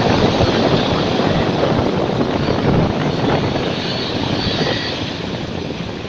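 Sea surf breaking on a pebble beach, the rush of foaming water over the shingle fading slowly as the wave washes back.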